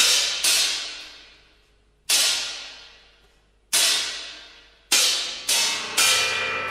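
Contemporary ensemble music: a series of seven sharp, irregularly spaced strikes on metal percussion, cymbal-like, each ringing and dying away. Near the end a sustained ringing tone with several steady pitches sets in.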